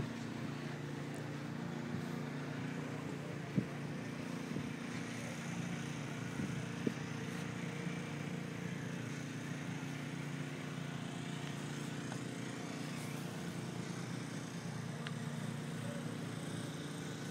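An engine running steadily at an even pace, with a couple of sharp clicks about four and seven seconds in.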